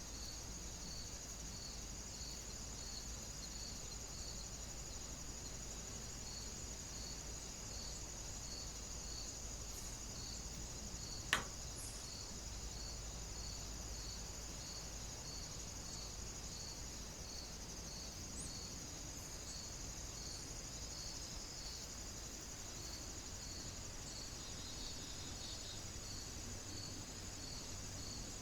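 Insects chirping steadily: a constant high trill with regular pulsed chirps, nearly two a second, over a faint even hiss. One sharp click about eleven seconds in.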